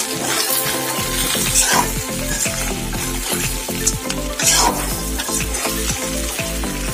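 Perforated metal spatula stirring and scraping mutton, potatoes and onions frying in a kadai, over a steady sizzle. Background music with a steady beat comes in about a second in.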